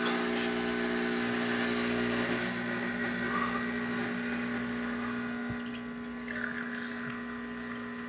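Rocket Appartamento espresso machine's vibratory pump buzzing steadily as it pulls a shot, with a louder hiss over it that falls away a little over two seconds in.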